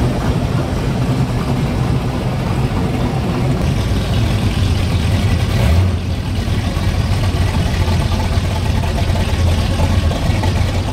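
Classic Chevy pickup truck engine running at low speed as the truck rolls slowly by, a steady low rumble that grows deeper and stronger about halfway through.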